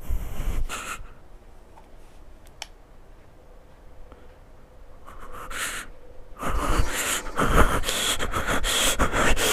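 Rustling and scraping close to the microphone: a short burst at the start, a few quiet seconds, then steady rustling with many small clicks from about six and a half seconds in.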